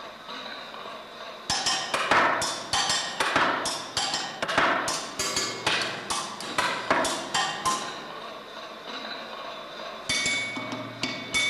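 Metal tool striking a rusted iron sculpture, a quick run of sharp clanging hits at about three a second, each ringing briefly. It starts about a second and a half in and stops about two-thirds of the way through. After a quieter stretch, clearer ringing metallic tones come in near the end.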